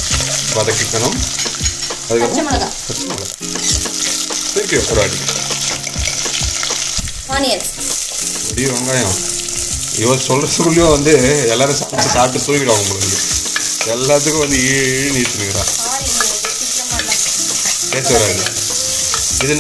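Garlic sizzling and frying in hot oil in a clay pot, stirred with a steel ladle that scrapes and knocks against the pot. About ten seconds in, chopped onions are tipped in from a wooden board and stirred through.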